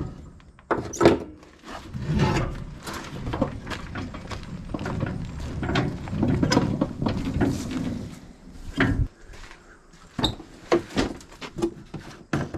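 Irregular knocks, scrapes and rustling of things being handled and moved.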